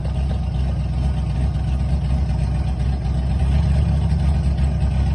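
Drift car engine idling steadily, freshly started and running on new braided stainless PTFE fuel lines with fuel pressure holding.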